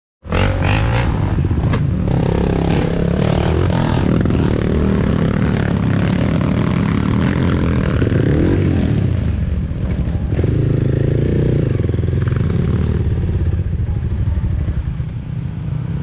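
Dirt bike engines running under load up a rutted trail, the pitch rising and falling with the throttle, with a few knocks and rattles from the bikes in the first couple of seconds.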